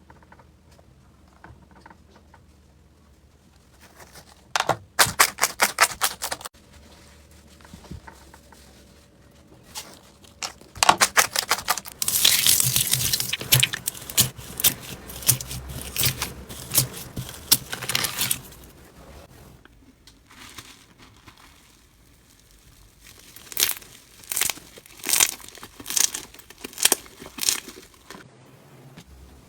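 Slime being worked by hand, crackling and popping in bursts: a short run of crackles about five seconds in, a long stretch of dense crackling in the middle, then a series of separate crackly squeezes near the end.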